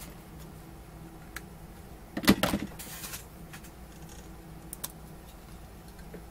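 Things being handled on a workbench: a brief clatter about two seconds in, then a few light clicks, over a steady low hum.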